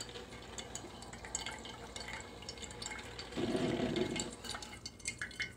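PowerXL Grind & Go coffee maker brewing: brewed coffee dripping and trickling into the mug with small gurgling ticks, and a louder gurgling sputter for about a second just past the middle.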